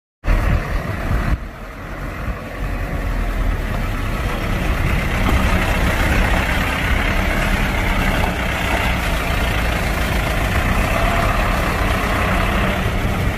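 Truck's diesel engine running steadily, a continuous low engine rumble with no speech.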